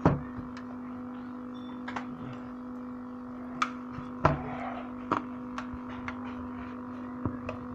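Steady electrical hum from an old TV's speaker, with no programme sound, typical of the sound fault being repaired. Scattered sharp clicks and knocks of handling sound over it.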